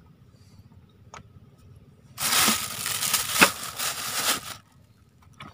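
Loud, close rustling and crinkling noise lasting about two and a half seconds, with a few sharper crackles in it, after a faint click about a second in.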